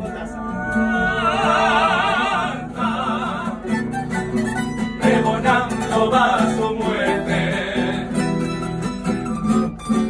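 A tuna ensemble playing live: acoustic guitars and a small pear-shaped Spanish lute, with male voices holding wavering notes over the accompaniment.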